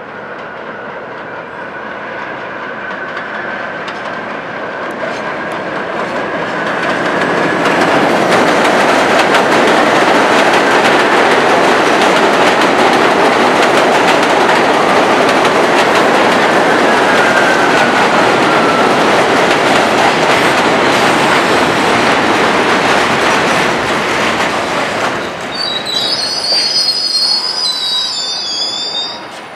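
R68A subway train pulling into an elevated station: wheel clatter and running noise growing over several seconds to a loud, steady din as the cars pass. In the last few seconds there is high squealing as the train slows.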